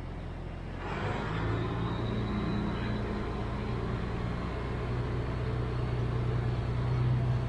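Tractor engine running under light load while backing a grain cart, picking up about a second in and then holding a steady low drone.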